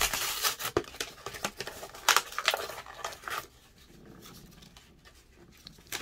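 Packaging being torn and crinkled open by hand: a quick run of sharp rips and crackles for about three and a half seconds, then only faint handling noises.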